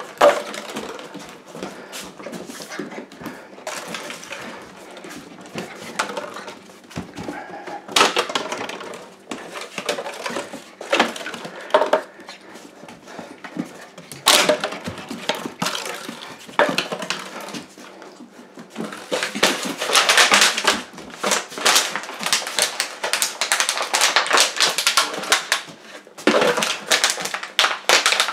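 Empty plastic water bottle crinkling and clattering on a hardwood floor as a puppy plays with it, with scattered sharp knocks. A long run of dense crackling comes about two thirds of the way through.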